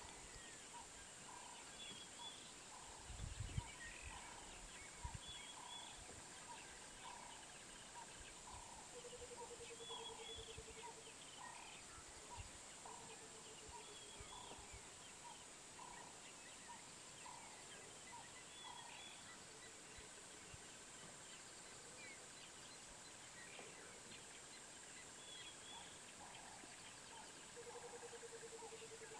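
Faint bush ambience: birds calling, one repeating a short note a little faster than once a second, with higher chirps and a few short low trills now and then, over a steady high insect hiss. A few low thumps about three to five seconds in.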